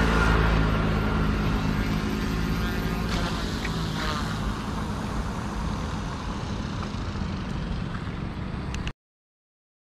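An OMP M2 class 200 electric RC helicopter whirring as it sits on gravel, its rotor and motor slowly winding down. The sound fades gradually and cuts off suddenly near the end.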